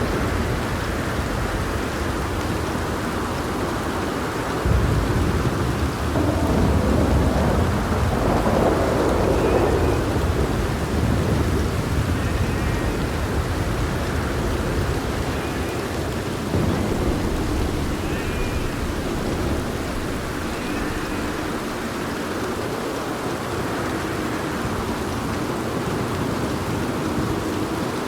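Steady heavy rain with rolling thunder: a deep rumble swells about five seconds in and rolls on for several seconds, and a smaller one comes around the middle.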